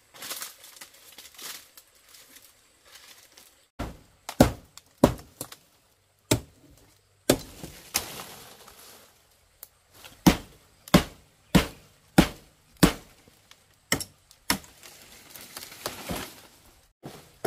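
Hooked blade chopping through palm frond stalks: about a dozen sharp chops, spaced roughly half a second to a second apart, with the fronds rustling and crackling between strokes.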